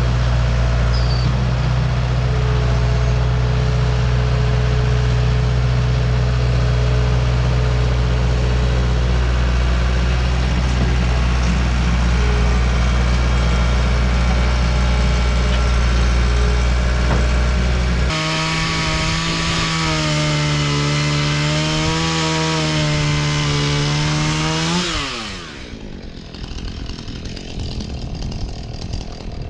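An engine running steadily at constant speed. About 18 seconds in it gives way to a chainsaw engine note that wavers up and down, then winds down and stops about 25 seconds in.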